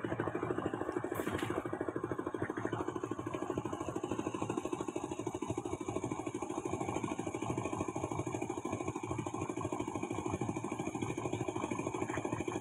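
An engine idling steadily with a fast, even beat.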